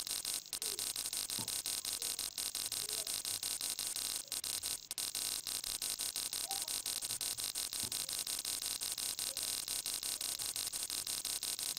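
Rapid, evenly spaced clicking of the SSCNC simulator's handwheel being turned step by step to jog the Y axis toward the workpiece, over a steady hiss.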